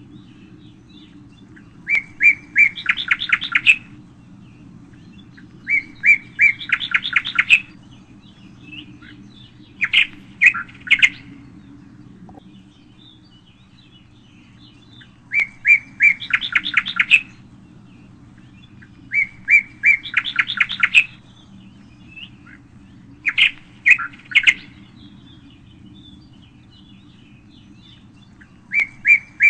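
A songbird singing the same short phrase over and over, about every four seconds: a few separate high notes and then a rapid trill, each phrase lasting one to two seconds. A faint steady low hum runs underneath.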